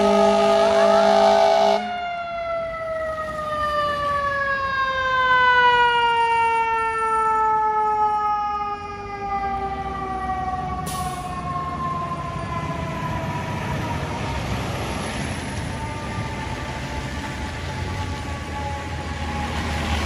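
Fire engine's air horn sounding a steady chord until about two seconds in, then its mechanical siren winding down in one long falling wail that fades out about ten seconds in, leaving the low rumble of the truck's engine and traffic.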